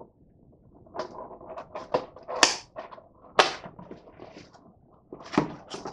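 Cardboard CPU retail box being handled and opened by hand: a string of irregular taps, clicks and short scrapes of the card, the sharpest about two and a half and three and a half seconds in.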